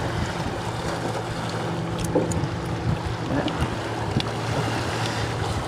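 Sea waves washing and wind on the microphone, under a steady low hum, with a few faint clicks.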